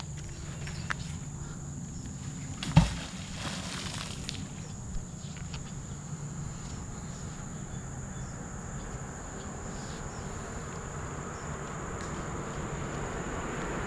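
Magnet fishing magnet on its rope landing in pond water with one heavy splash about three seconds in, over a steady high hum of insects. Near the end a vehicle is heard approaching.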